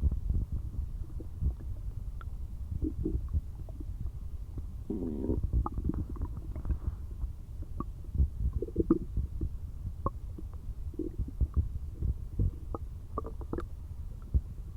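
Empty human stomach growling and gurgling from hunger: a continuous low rumble with scattered small pops and several gurgles, the longest and most bubbly one about five seconds in.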